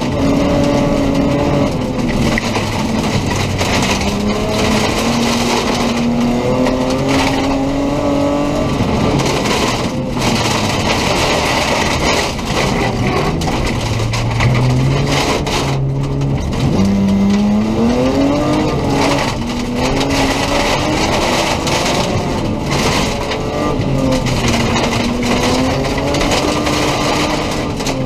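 BMW M3 rally car's engine heard from inside the cabin, revving hard and dropping back again and again as it accelerates, shifts and slows on a gravel stage, with steady tyre and gravel noise underneath.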